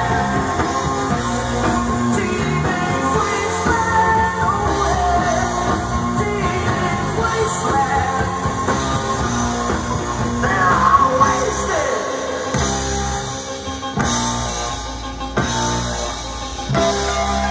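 Rock music with singing, played through a Sansui AU-999 integrated stereo amplifier and its speakers.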